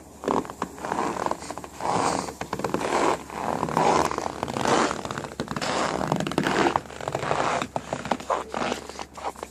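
A regular series of noisy crunching scrapes, about one a second, each lasting around half a second.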